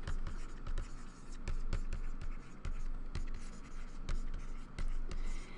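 Stylus writing on a pen tablet: an irregular run of light taps and scratches as words are handwritten, over a low steady hum.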